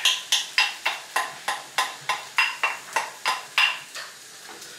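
A wooden spatula rapping rapidly against the inside of a ceramic bowl, about four knocks a second, each with a short ring, as the last of the beaten egg is knocked out into a frying pan. The knocking stops about four seconds in.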